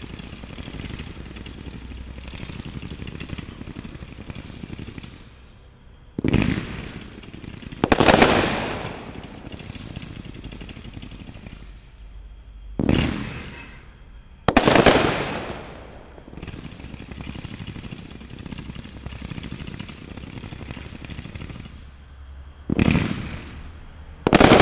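Brothers Pyrotechnics Sound and Light Show 213-shot firework cake firing: a steady rapid stream of small shots and crackle, broken six times by loud bangs, each fading out over a second or two, the last near the end.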